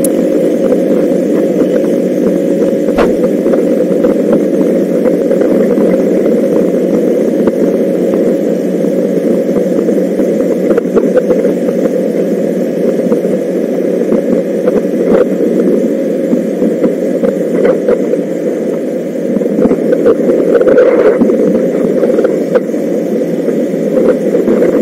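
A 125 cc single-cylinder motorcycle running steadily while being ridden, heard from on board. The level dips slightly about three-quarters of the way through, then picks up again.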